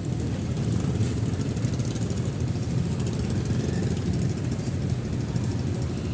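Small motorcycle engine of a passenger tricycle running steadily at low speed.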